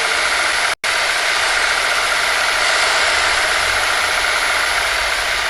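Washing machine running, a loud steady mechanical drone that cuts out for an instant about a second in.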